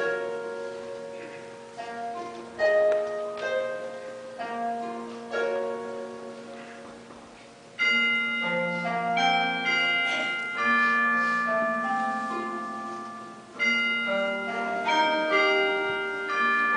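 Slow instrumental music: single notes and chords are struck and left to fade, with a louder chord coming in about eight seconds in and another near fourteen seconds.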